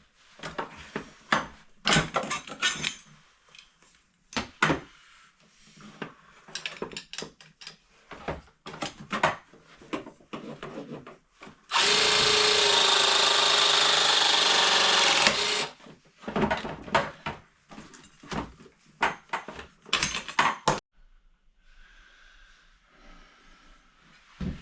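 Power drill running steadily for about three and a half seconds near the middle, amid scattered short knocks and clicks from tool work. It goes quieter near the end.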